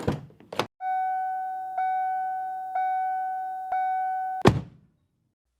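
Electronic intro sound effects: two quick swishes, then a steady, chime-like electronic tone that is re-struck three times about a second apart, cut off by a sharp whoosh.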